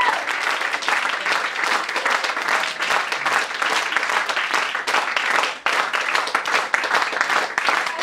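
Applause from a room full of people, many hands clapping densely and steadily, with a momentary lull about five and a half seconds in.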